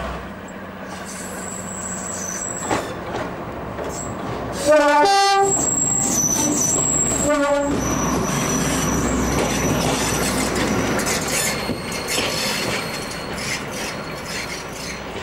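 Warship-class diesel-hydraulic locomotive running, with its two-tone horn sounding a low then a higher note about five seconds in and a short low note about two seconds later. Thin high squeals come and go over the engine noise.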